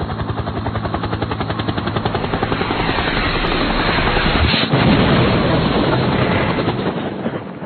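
A loud, rapidly pulsing chopping whoosh, about ten beats a second, that swells for about five seconds and then fades out: an edited-in intro sound effect.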